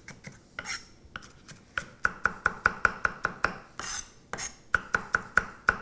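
Chef's knife rapidly chopping red onion into small dice on a wooden chopping block: quick, even knocks of the blade on the wood, about five a second, growing louder about two seconds in, broken by a few short pauses.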